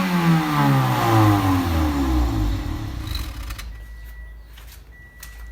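Toyota Corolla's 1.8-litre 1ZZ-FE four-cylinder engine falling back from a rev, its note dropping steadily over about two and a half seconds. It then runs quieter, with a faint steady high tone and a few clicks near the end.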